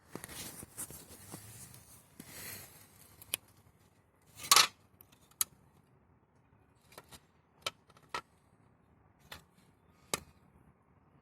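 Handling noises: a few seconds of rustling, then a loud scrape or knock and a string of sharp clicks and taps, most likely the plastic fan being turned over in the hand. There is no steady tone of a running fan.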